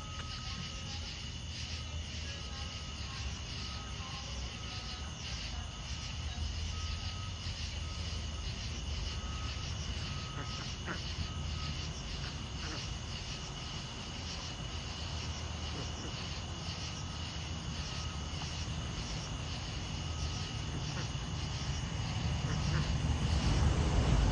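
Outdoor ambience: insects chirring in a steady pulsing rhythm, high up, over a low rumble that grows louder near the end.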